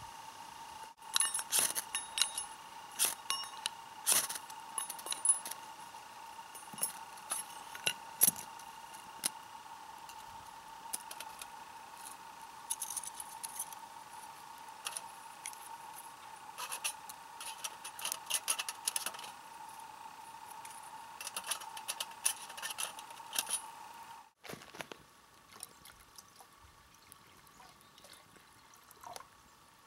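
Metal clinks and light clatter as the parts of a small wood-burning camp stove are handled and set down, a run of sharp clinks through most of the stretch that thins out to a few quieter ticks near the end.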